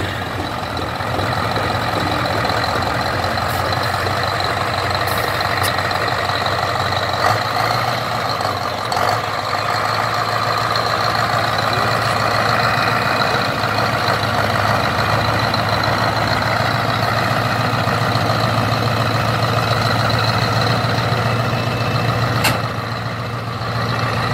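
Scania V8 diesel engine of a hot-rod pickup running steadily at idle through its open exhaust stack. A sharp click comes about two seconds before the end, after which it runs a little quieter.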